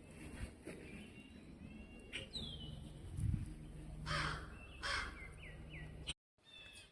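Crows cawing harshly as they mob a hawk, two loud caws about four and five seconds in. Thin, high falling calls from other birds come in between.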